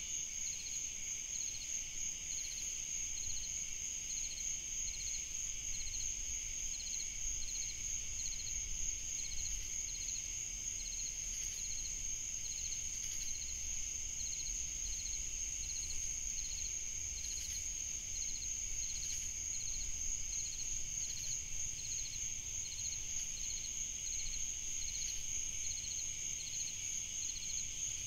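Night chorus of crickets: one high trill held steady, with a softer chirp repeating evenly, about three every two seconds.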